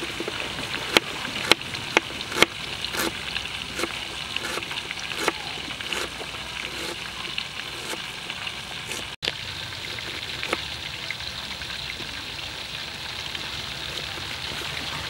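Kitchen knife cutting shallots and then a lime on a plastic cutting board. The blade knocks sharply on the board about twice a second at first, then more sparsely, over a steady hiss.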